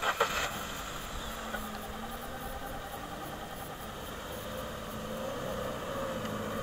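Ford Fiesta's engine running as the car drives slowly across soft beach sand, growing a little louder near the end.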